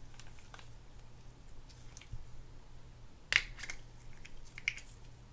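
Light clicks and taps of small plastic and metal spinning-reel parts being handled and fitted together as the spool is slid onto the reel, with one sharper click a little over three seconds in and a few smaller ones after it.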